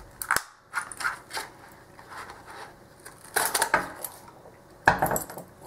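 Ace A527 hardened-steel padlock being worked out of its cardboard retail package: a series of short, irregular rustles and scrapes of card with metal clinks from the lock, the longest about three and a half seconds in.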